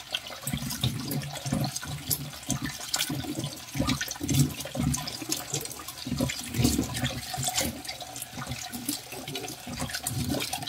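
Kitchen tap running into a plastic basin in a stainless steel sink, with irregular splashes and sloshes of water as a wet cat is rinsed by hand.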